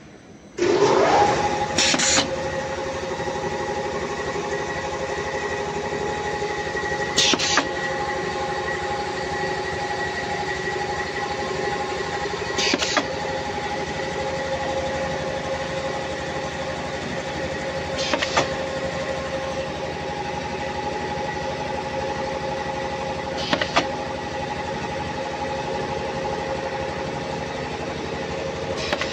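Dog meat-strip forming and extrusion line running. A motor whine rises to speed about half a second in, then settles into a steady hum with several held tones. A brief sharp hiss of compressed air from the pneumatic cutter bar comes about every five and a half seconds.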